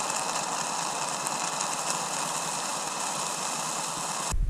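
Stovetop espresso maker brewing: a steady hiss as coffee streams from its spout into a metal cup, stopping abruptly just before the end.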